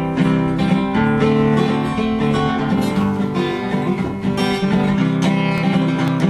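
Song intro played on acoustic guitar, strummed at a steady beat.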